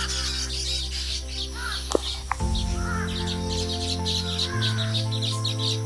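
Many small birds chirping rapidly, with some short arching calls, over background music of held chords that change about two and a half seconds in and again near the end. A single sharp click comes about two seconds in.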